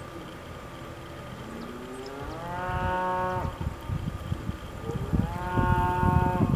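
Cattle mooing: two long calls, each rising in pitch and then held, the first a couple of seconds in and the second about five seconds in. Low, uneven rumbling thumps sound underneath.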